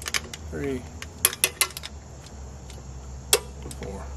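Sharp metallic clicks of a torque wrench and socket on the bearing cap bolts of a Dana 60 differential as the carrier caps are tightened. There are several separate clicks, a couple with a brief ring.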